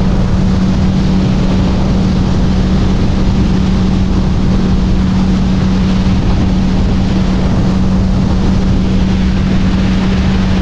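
Outboard motor of a small fishing boat running at steady cruising speed: one even, unchanging hum.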